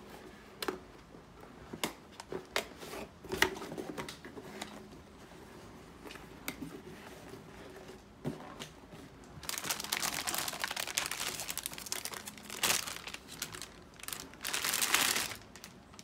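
Cardboard motherboard box being handled, with scattered light knocks and taps, then a plastic anti-static bag crinkling as a motherboard is slid out of it, in two stretches in the second half.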